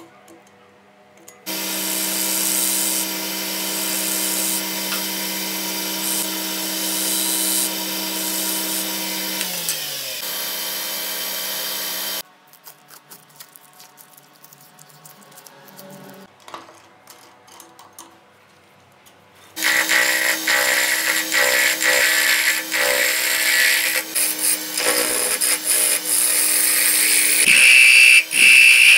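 Wood lathe running with a tool on the spinning wood, a steady hum with a hiss of cutting. About ten seconds in the motor winds down, its pitch sliding lower, and stops. After a spell of quiet masking-tape handling, the lathe runs again while a gouge cuts the turning wood with a loud, rough scraping and hissing.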